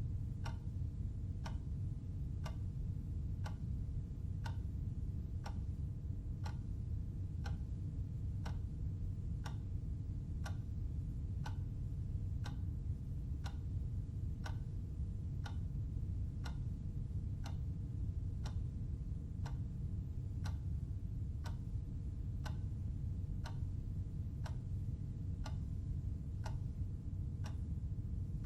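Clock ticking steadily, evenly spaced ticks over a low steady hum.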